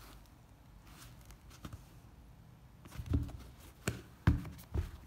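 Handling noise from a sneaker being moved about by hand on a table: quiet at first, then about four short knocks and rustles in the last two seconds, one of them much louder than the rest.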